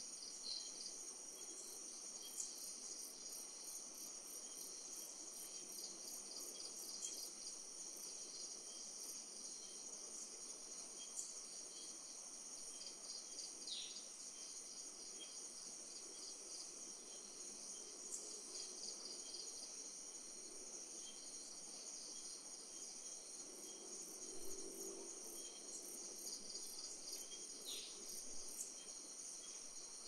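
Night insect chorus: crickets trilling steadily in several high pitches, one layer pulsing quickly. A short falling chirp cuts through twice, about halfway and near the end, and a faint low call sounds a little after the first of these.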